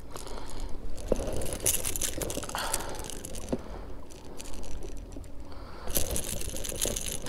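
Metal fishing pliers and a topwater lure's treble hooks clinking and rattling as a hooked white bass is worked free, with several sharp clicks and some splashing from the fish in the water near the end.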